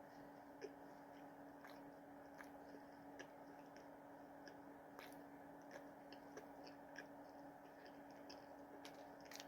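Faint chewing of a burger, heard as scattered soft mouth clicks over a low steady hum.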